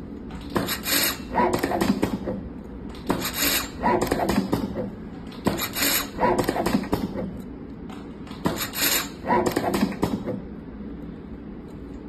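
Automatic tape wrapping machine running repeated wrapping cycles on a wire coil: a noisy mechanical burst of about two seconds as the head winds tape, four times, about every two and a half seconds, over a steady low hum.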